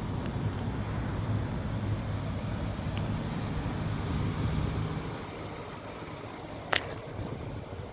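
Low, steady outdoor rumble of a car lot, easing off about five seconds in, with one short sharp chirp near the end.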